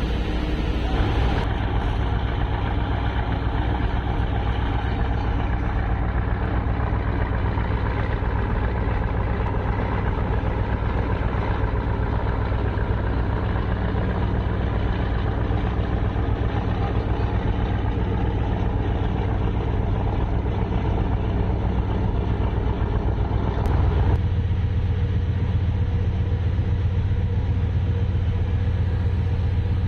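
A ferry's diesel engines running steadily, a deep hum heard on board, with a rushing of wind and water over it. About three quarters of the way in, the low hum grows stronger and the rushing falls away.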